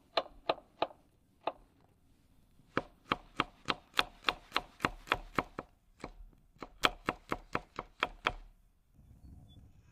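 Kitchen knife chopping garlic finely on a cutting board: quick sharp taps at about three a second, in runs with short pauses, stopping shortly before the end.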